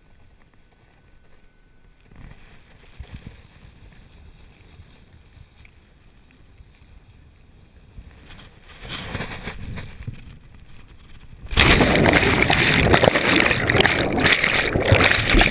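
Wind rushing over the microphone during a descent under two reserve parachutes, growing louder. About eleven and a half seconds in comes a sudden loud impact as the pilot hits the lake, followed by loud, steady churning water noise.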